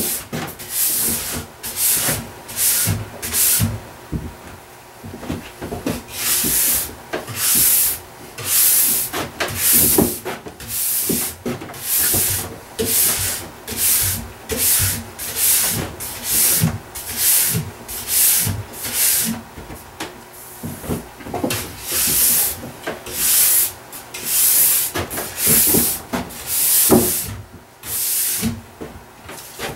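Fine stainless steel ski brush stroked down a ski's base, a rapid series of scratchy strokes at about one and a half a second, with a short pause about four seconds in. It is brushing leftover wax out of the base structure after scraping.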